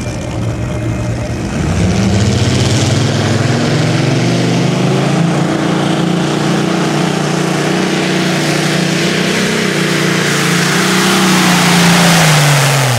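Competition pulling tractor's engine at full throttle: it climbs hard about a second and a half in, holds at high revs under heavy load through the pull, then drops off near the end as the throttle comes off.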